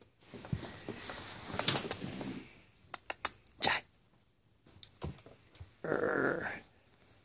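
A ferret scuffling and tussling with a plush teddy bear on carpet: irregular rustling and scrabbling with sharp clicks and scratches, and a short louder noise about six seconds in.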